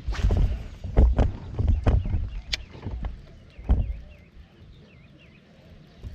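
A run of hollow knocks and thumps on a kayak's hull, about seven in the first four seconds, then quieter. Faint short chirps repeat in the background from about halfway through.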